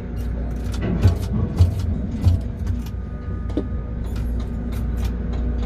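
Steady low rumble and electric hum inside a tower crane cab, with three low thumps about a second in and many light clicks, as the crane works a wind-caught load.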